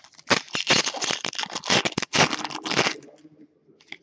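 Hockey trading cards being flipped through and shuffled by hand, a quick run of rustles and card-on-card slaps that dies away after about three seconds.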